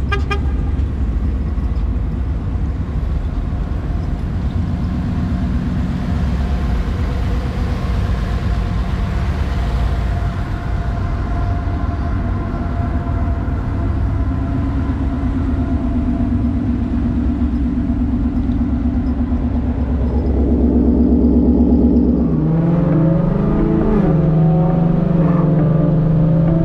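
A 2019 Ford Mustang GT's 5.0 V8, fitted with long-tube headers and a catback exhaust, idling with a steady deep rumble. It gets a little louder about twenty seconds in. Soon after, the sound changes, with a wavering higher tone over the rumble.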